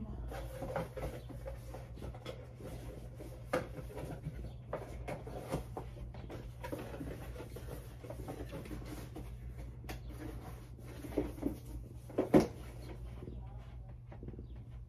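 Light knocks, taps and rustles of someone handling things close by, the loudest knock about twelve seconds in, over a steady low hum.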